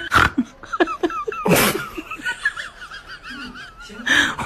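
Laughter, snickering and chuckling in wobbling, high pitch, broken by a few short, sharp breathy bursts.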